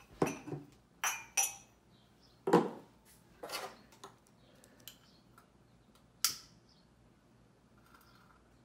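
Wine glasses set down on a coffee table: a handful of knocks and glassy clinks in the first few seconds, then a lighter clicks once about six seconds in.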